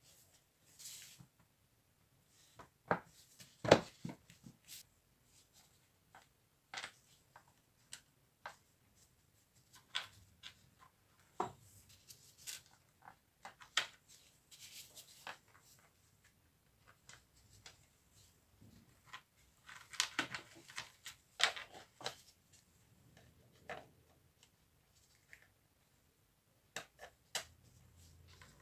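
Scattered small clicks and knocks of Bosch jigsaw parts being handled and fitted together during reassembly, with the loudest knock about four seconds in and a quick flurry of clicks around twenty seconds in.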